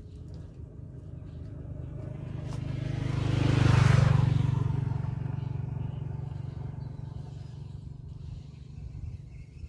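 A passing engine: a steady low engine note that grows louder to a peak about four seconds in, then fades away.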